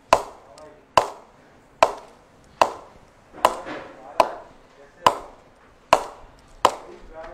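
A new cricket ball knocked nine times against the middle of a GM Diamond Original cricket bat's blade, about one sharp knock a second, each with a short ringing ping. It is a ping test, and the ping is slightly underwhelming, which the tester puts down to GM's hard pressing of the willow.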